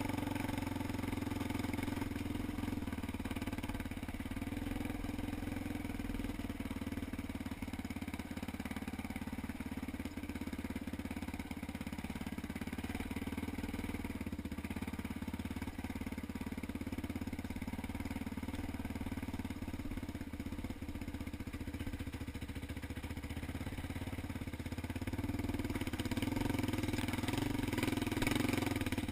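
ATV engine running steadily under way on a dirt trail, getting louder in the last few seconds.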